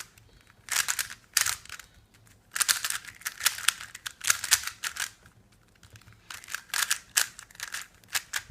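Plastic GAN 356 speed cube being turned quickly through a sequence of moves: groups of rapid clacking turns, with short pauses between the groups.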